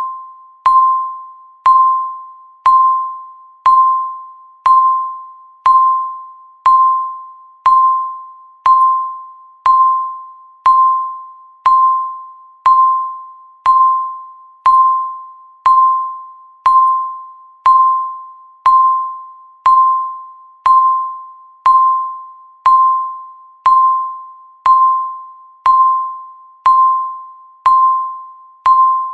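Countdown timer beeping once every second: short electronic beeps all at the same pitch, each starting sharply and dying away before the next.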